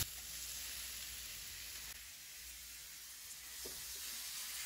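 Finely chopped onions sizzling in hot oil in a frying pan: a steady, quiet hiss.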